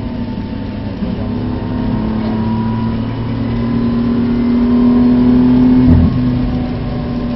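BMW F80 M3's twin-turbo straight-six pulling hard under acceleration, heard from inside the cabin. Its note climbs slowly in pitch and grows louder, then drops sharply about six seconds in.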